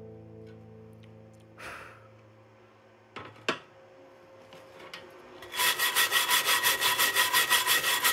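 A couple of faint taps, then a steel wire brush scrubbed rapidly back and forth over a fresh weld bead on thin galvanized steel tube, cleaning off slag and spatter. It makes a rhythmic scraping at about seven strokes a second, starting about five and a half seconds in.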